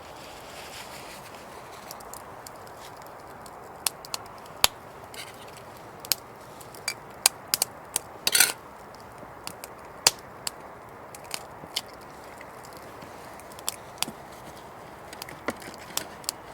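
Wood campfire crackling: irregular sharp pops and snaps over a steady rush, with a louder snap a little past eight seconds.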